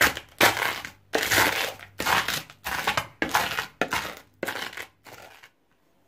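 Dried eggshells being crushed in a bowl with the bottom of a drinking glass: a run of crunching strokes, about two a second, stopping about five and a half seconds in.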